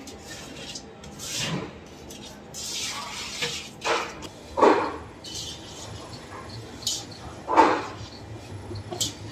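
Commercial bakery dough mixer: several dull knocks and clanks of metal at the bowl, the loudest about four and a half and seven and a half seconds in, and a low motor hum as the beater starts turning near the end.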